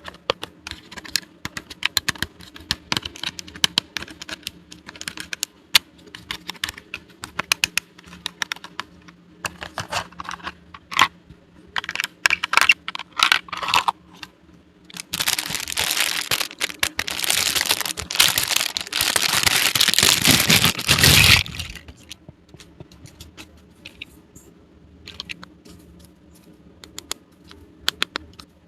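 Small plastic toy pieces clicking and tapping as they are handled. About halfway through comes some six seconds of loud rustling of packaging being torn open, then sparser clicks.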